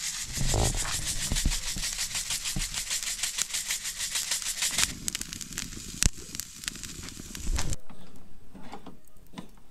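A rapid, even run of scraping or rubbing strokes that stops about halfway through. A duller, lower rustle follows, with one sharp click about six seconds in.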